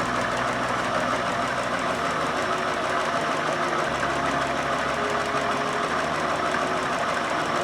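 Chillaxplus 618 electric sewing machine running steadily at an even speed, sewing a picot stitch (pattern 17) with the picot presser foot.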